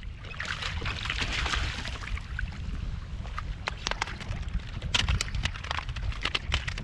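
Wind rumbling on the microphone over open water beside a kayak, with splashing and a scatter of sharp clicks and ticks from fishing gear being handled, thicker in the second half.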